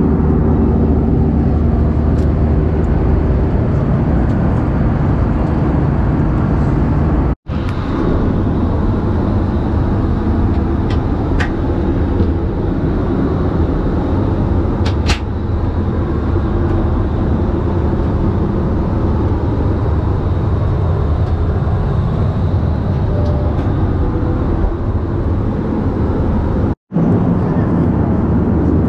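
Loud, steady vehicle noise with a low rumble, broken twice by an abrupt split-second silence, about seven seconds in and near the end.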